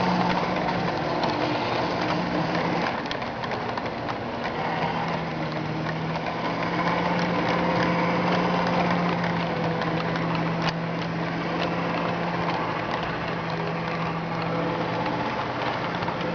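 HO-scale model diesel locomotives running along the layout track: a steady motor hum that fades and returns, with wheels rattling and occasionally clicking over the rail joints.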